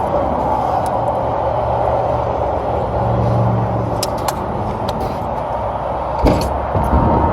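Steady rumbling noise with a low hum, broken by a few light clicks and a single thump about six seconds in.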